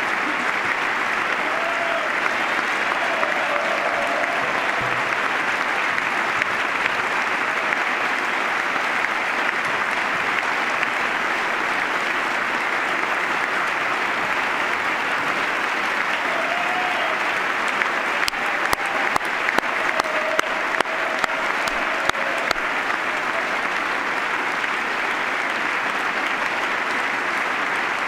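A large audience applauding in a long, steady standing ovation. A few sharper individual claps stand out about two-thirds of the way through, with faint voices calling out now and then.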